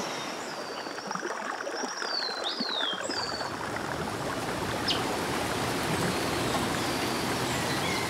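Water rushing over rocks in a stream, a steady even noise. A few short, falling bird chirps are heard in the first three seconds. About three seconds in, the water becomes fuller and deeper.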